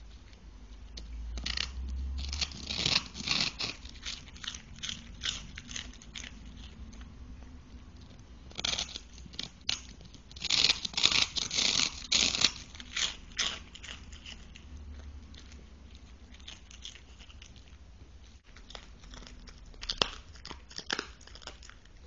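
A Cavalier King Charles Spaniel crunching and gnawing a microwaved K9 Highland cheese dog chew: bouts of sharp, crackling crunches with quieter pauses between, the loudest bout about halfway through.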